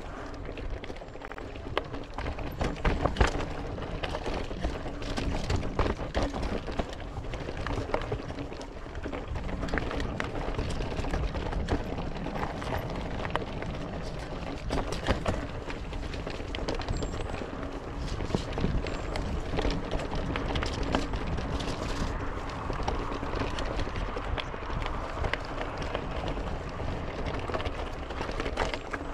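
Intense 951 XC mountain bike rolling fast down rocky dirt singletrack: steady tyre noise on dirt and leaves, broken by frequent knocks and rattles as the bike hits rocks and roots.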